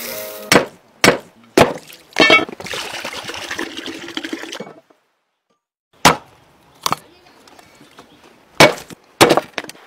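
A series of sharp wooden knocks and chopping strikes, about ten in all. Between the first knocks and the later strikes come a couple of seconds of small hard pieces rattling as they pour into a stone mortar.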